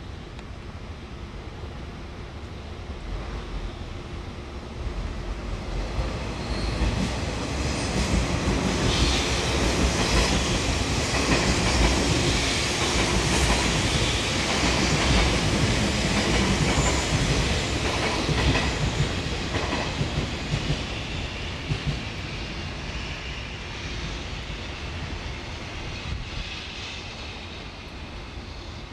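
A train passing on nearby track: its wheels clatter over the rail joints, building up for several seconds, staying loud for about ten seconds, then fading away.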